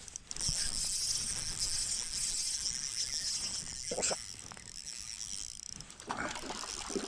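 Spinning reel ratcheting while a hooked smallmouth bass is played in, a fast high buzz that runs for about four seconds and then fades, with a knock about four seconds in.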